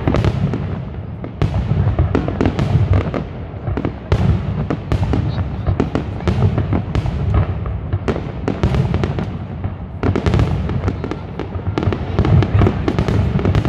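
Fireworks display: aerial shells bursting in rapid succession, several bangs a second over a continuous rumble of booms and crackle.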